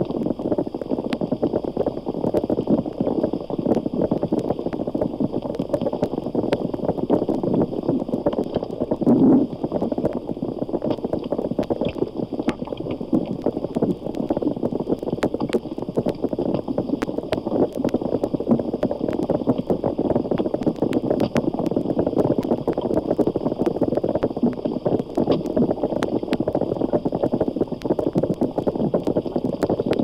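Underwater recording of a school of 200 or more sea catfish sounding together: a dense, continuous bubbling crackle of many small clicks, like a coffee percolator.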